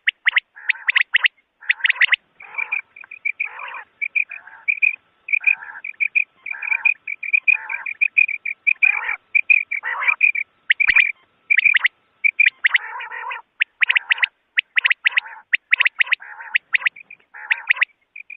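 Common quail calling: many short calls repeated in quick succession with hardly a pause, a recurring high note over lower notes. It is a recorded quail call of the kind played to lure quail when hunting.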